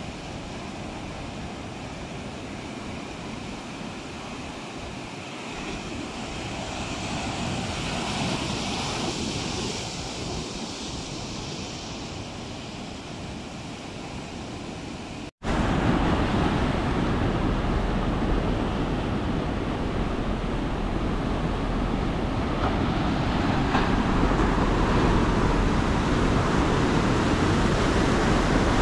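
Ocean surf breaking and washing ashore, with wind rumbling on the microphone. About halfway through the sound drops out for a moment and comes back louder, with more low wind rumble.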